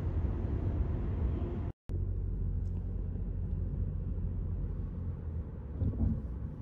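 Steady low rumble of road and engine noise inside a moving car's cabin, cutting out completely for a moment just under two seconds in.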